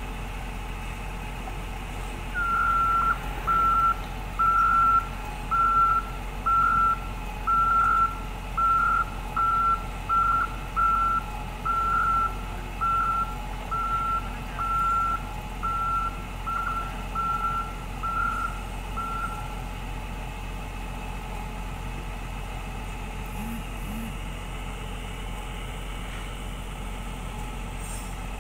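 A heavy machine's backup alarm beeping at one high pitch, about once a second, over a steadily running engine. The beeping starts a couple of seconds in and stops about two-thirds of the way through.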